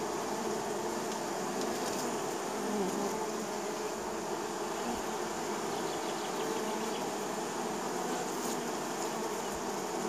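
A crowd of honey bees buzzing at their hive entrance as they fly in, land and take off, making a steady, dense hum.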